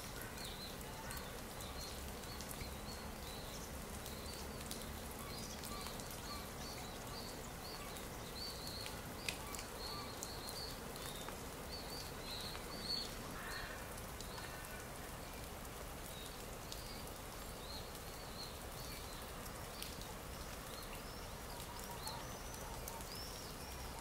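Looped stock nature-ambience track: small birds chirping over and over in high, short calls above a faint steady hiss, with an occasional click.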